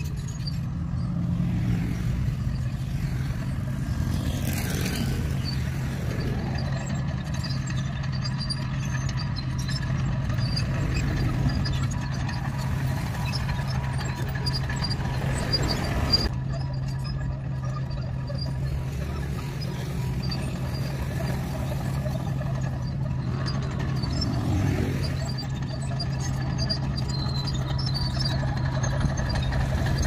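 Diesel engine of a crawler bulldozer running with a steady low drone as it mixes scarified road-base material, with a few brief swells that may be passing trucks.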